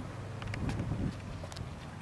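Low rumble of wind on the microphone outdoors, with a few faint clicks.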